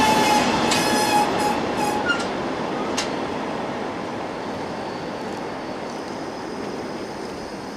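Bogie cement tank wagons of a freight train rolling past on the rails. A high ringing wheel squeal sounds for the first couple of seconds, with a few sharp clicks from the wheels. The rolling noise fades slowly as the train draws away.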